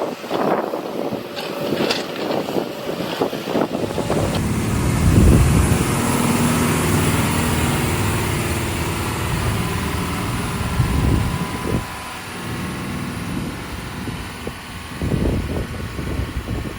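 Heavy diesel engine of construction machinery running. It comes up loud about four seconds in, after a few seconds of wind-like noise and light knocks, then keeps running steadily with some rise and fall in pitch.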